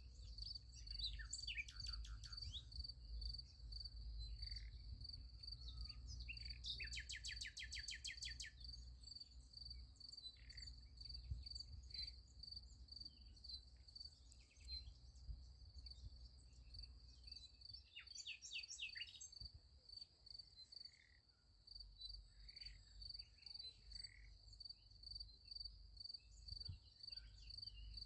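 Field crickets chirping in a steady, fast pulsing trill, with birds calling over it: a few rapid trills, the loudest about seven seconds in, and scattered short chirps. A faint low rumble runs underneath.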